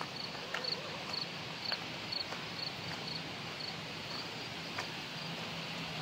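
An insect chirping steadily, short high chirps about twice a second, over a steady outdoor hiss, with a few soft footsteps on a gravel trail.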